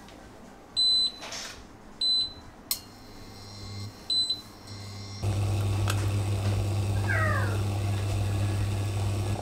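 Induction hob touch controls beeping three times as they are pressed, then the hob switching on with a steady low hum and hiss as it heats a pot of water. A short falling squeal about seven seconds in.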